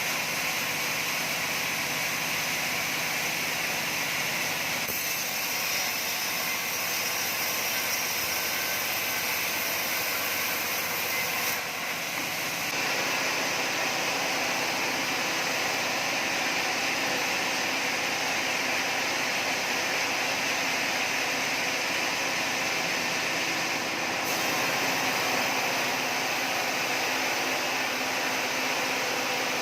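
Sawmill machinery running continuously, a steady mechanical noise whose tone changes abruptly a few times.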